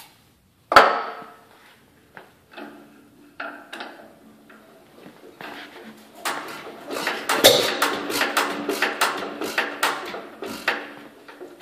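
Economy hit-and-miss stationary engine being turned over by hand with starter fluid, its flywheel spinning: a quick run of clicks and knocks from the engine's moving parts starts about six seconds in and carries on for several seconds. A single sharp knock comes about a second in.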